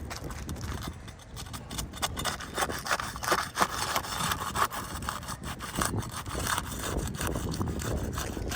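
Irregular gritty scraping and rubbing against asphalt laminate roof shingles, with short knocks, as a shingle tab is worked loose and lifted.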